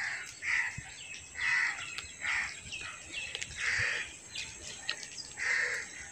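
A crow cawing over and over, about one harsh caw a second.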